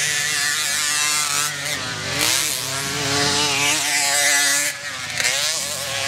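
Racing moped engines revving hard at high pitch as riders pass on a dirt track. The pitch drops and climbs back up about two seconds in and again near five seconds, as the throttle is backed off and opened again.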